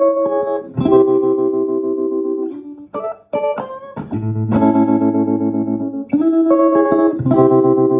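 Electric guitar played through a 1983 Vermona Regent 300 K, with chords and notes held for a second or two, and a few quick runs in between.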